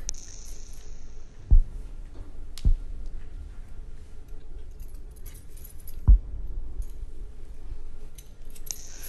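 A bunch of keys jangling, with a few sharp dull thuds, the loudest about one and a half and six seconds in, over a low steady rumble.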